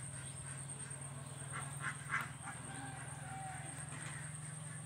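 Ducks quacking: three short quacks close together about two seconds in, over a steady low hum.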